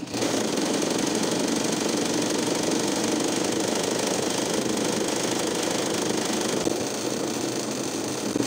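Sewing machine running fast and steadily, starting suddenly at the beginning, its needle stitching in a quick even rhythm. It is doing free-motion embroidery, filling an empty space in the design with dense spiral stitches.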